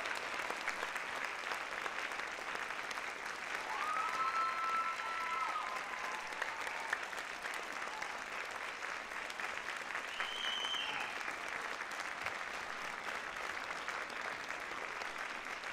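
Theatre audience applauding steadily, many hands clapping at once. Twice a short, held high call rises over the clapping, about four seconds in and again about ten seconds in.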